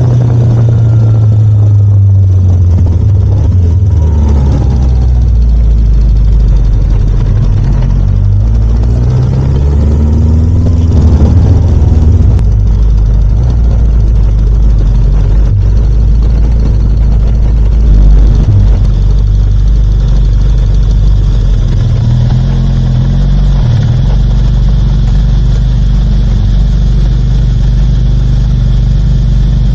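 Kawasaki Zephyr 750's air-cooled inline-four engine running loud and low, its pitch rising and falling as the revs change.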